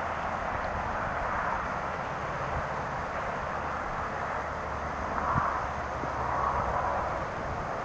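Steady outdoor background noise, an even hiss with a low rumble under it, and a brief low thump about five seconds in.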